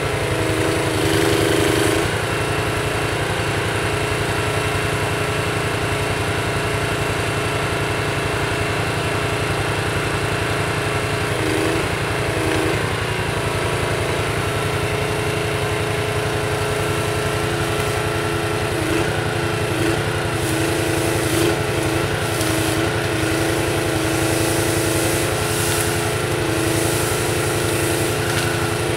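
Small engine running steadily, driving the hydraulics of a Jussi 400 ATV trailer crane as its grapple arm swings. The engine's note shifts briefly about a second in, around twelve seconds in and several times past twenty seconds, as the hydraulics are worked.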